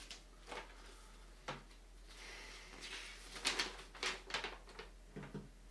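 A folded paper letter being unfolded and handled: faint paper rustles and crinkles, busiest about three and a half to four and a half seconds in.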